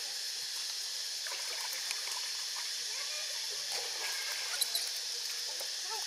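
Soft trickling and lapping of pond water around a swimming macaque, over a steady hiss, with a few faint wavering squeaks and a couple of small ticks near the end.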